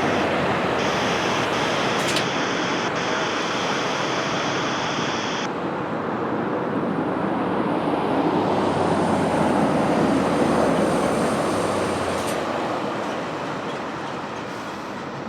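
Jet airliner landing, its engine noise a steady rushing sound with a faint high whine that swells to a peak about ten seconds in and then fades.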